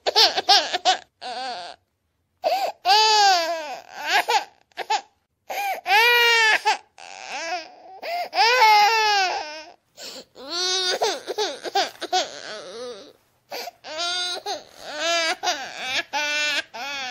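A person crying and wailing in repeated high-pitched cries, each rising and falling in pitch, broken by short gaps.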